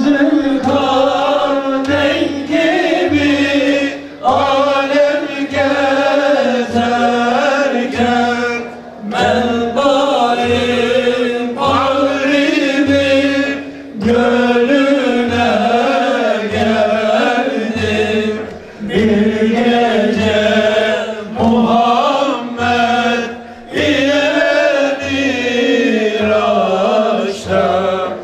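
Male singing of a Turkish religious hymn (ilahi) in a melismatic, chant-like style, phrase after phrase with short breaks between them. A steady low drum beat runs underneath.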